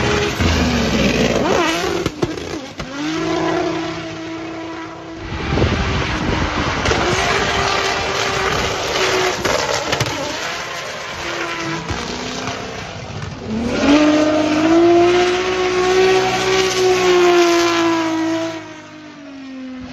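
Turbocharged BMW S50B32 inline-six of a BMW E82 drift car revving hard while drifting, its pitch climbing and falling again and again, with the tyres sliding. The loudest, highest-revving stretch comes about two-thirds of the way through, and the engine eases off near the end.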